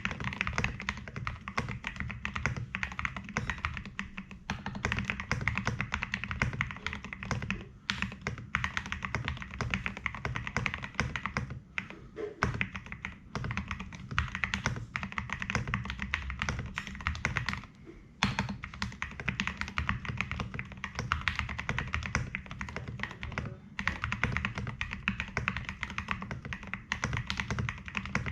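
Fast, continuous typing on a Filco Majestouch Ninja Tenkeyless mechanical keyboard with Cherry MX Red linear switches lubed with Super Lube and SA high-profile doubleshot keycaps. A steady stream of key clacks, with brief pauses about twelve and eighteen seconds in.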